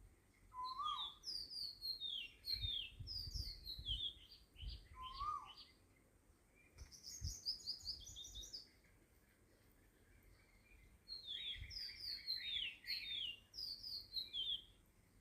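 Small birds chirping in quick runs of short, high, falling notes, in three bursts: near the start, about seven seconds in, and again after about eleven seconds.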